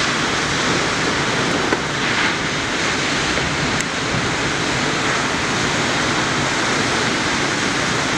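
Ocean surf breaking on a point: a steady, unbroken rush of white water.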